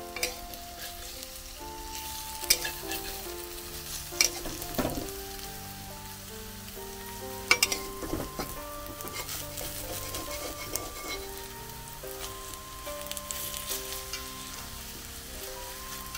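Cauliflower-leaf fritters sizzling as they fry in oil in a wok, with a metal spatula clicking and scraping against the pan a few times as they are turned. Background music plays under it.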